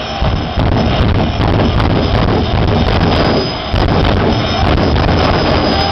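Jet dragster's turbine engine running loud and steady, with a high whine over a dense rush of noise. It is loud enough to distort the recording.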